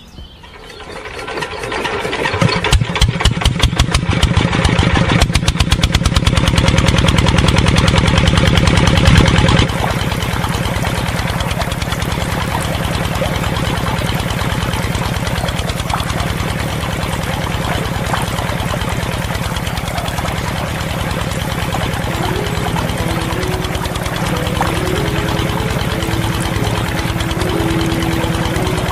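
Small single-cylinder stationary diesel engine starting on a hand crank and picking up to a rapid, even beat over the first couple of seconds. It is loudest for about ten seconds, then runs steadily and a little quieter, driving a belt-driven water pump.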